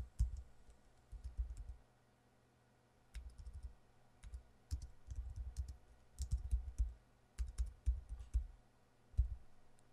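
Typing on a computer keyboard in short bursts of keystrokes, with brief pauses between them.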